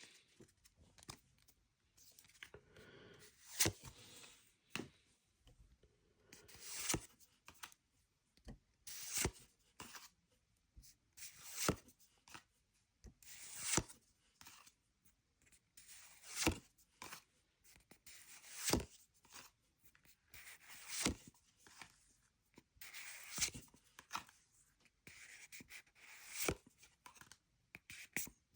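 Pokémon trading cards being handled one at a time, each a soft sliding rustle that builds to a brief snap, about every two and a half seconds.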